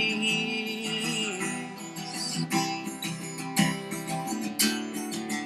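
Acoustic guitar strummed in a steady rhythm between sung lines, with the last held sung note trailing off in the first second or so.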